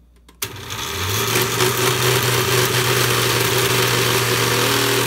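Oster countertop blender switched on with a click about half a second in, its motor spinning up over the next second and then running steadily at full speed, blending banana and a little almond milk in its glass jar.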